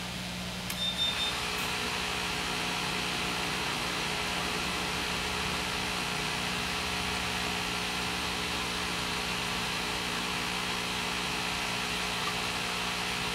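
CW-5200 water chiller, the cooling unit for a CO2 laser tube, switching on: a click and a short high beep about a second in, then its pump and fan running steadily.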